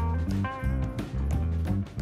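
Background music with guitar over a steady bass beat.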